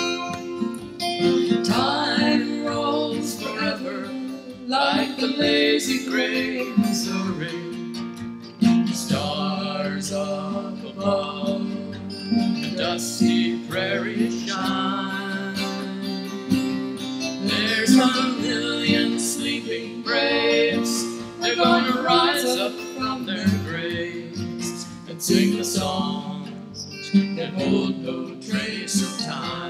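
Acoustic guitar playing an instrumental passage of a slow folk song.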